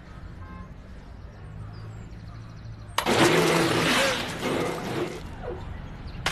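Countertop blender switched on suddenly about three seconds in, loud, with its contents spraying out over the woman working it. A short cry from her follows. Before that there is only a low, quiet hum.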